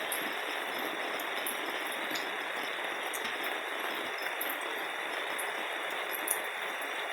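Steady hiss of falling rain, with a few scattered sharp ticks.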